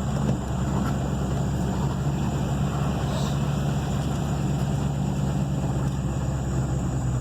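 A truck's engine and running gear, heard from inside the cab as it drives: a steady low hum.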